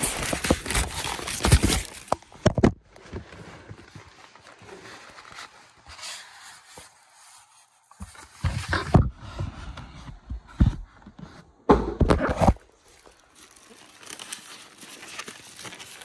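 Unpacking an electric meat grinder from its box: plastic wrap and foam packing rustling and crinkling, with parts knocking against each other in short bursts and quieter stretches between.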